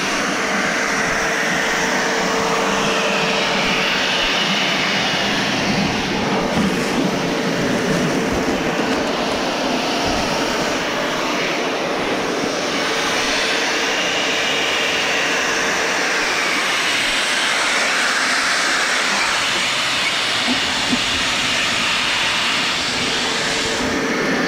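Home-built auger-type continuous concrete mixer running steadily, its auger screw churning concrete mix through the barrel, with a steady hum under the machine noise.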